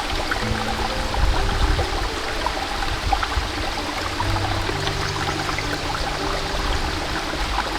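Stream water running and trickling steadily, under soft background music with long held notes.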